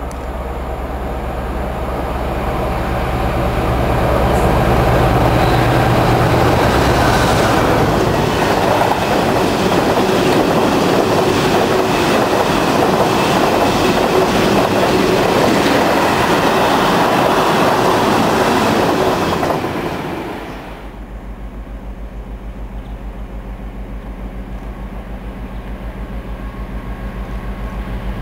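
A diesel-hauled freight train of hopper wagons passing close below, its wheels rumbling and clattering on the rails, loudest in the middle; the sound cuts off abruptly about 20 seconds in. Then a second diesel freight locomotive approaching, its engine a low, steady pulsing that grows louder near the end.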